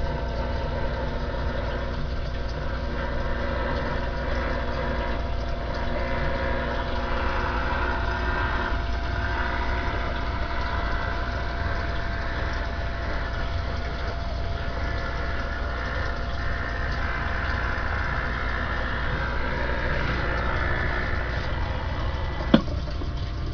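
CB radio receiving: steady static and hiss from the set's speaker, with a constant electrical hum underneath. A single sharp click comes near the end.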